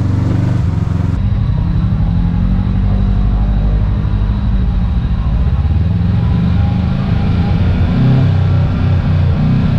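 Kawasaki KRX 1000 side-by-side's parallel-twin engine running as it drives a trail, its pitch rising and falling with the throttle, heard from inside the cab.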